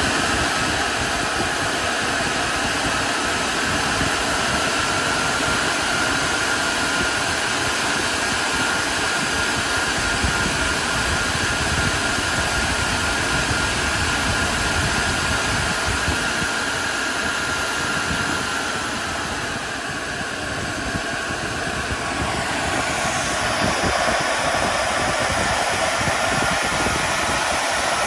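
Dell Compellent SCV2020 storage array's cooling fans spinning at full speed right after power-on: a loud, steady rush with a thin whine. About twenty seconds in, the whine and rush drop a little, then climb again a few seconds later.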